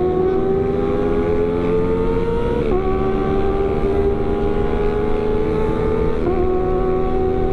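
Kawasaki ZX-25R's 250 cc inline-four, fitted with a CLD aftermarket exhaust, pulling under way. Its note climbs steadily and drops with an upshift about three seconds in, then climbs again and drops with another shift a little after six seconds.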